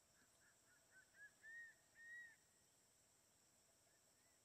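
Crested serpent eagle of the Ryukyu race calling: a run of short whistled notes that grow louder and longer, ending in two drawn-out, arched whistles about a second and a half and two seconds in, with a fainter call near the end. A steady high insect drone runs underneath.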